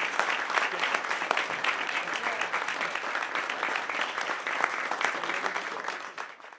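A room full of people applauding, many hands clapping steadily; the applause fades away near the end and cuts off.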